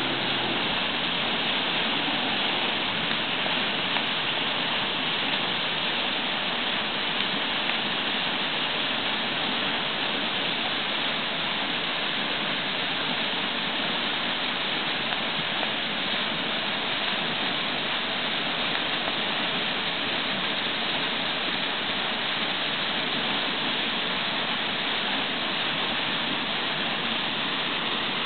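Steady rushing and churning of river water spilling over and through a cracked old stone dam into whitewater below.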